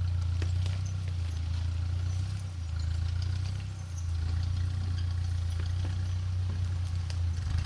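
An engine running steadily at a low, even speed, with scattered clicks and clatter over it.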